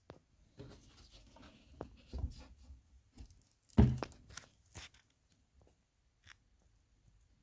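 Irregular rustling and crackling with scattered clicks, and one louder thump a little past halfway.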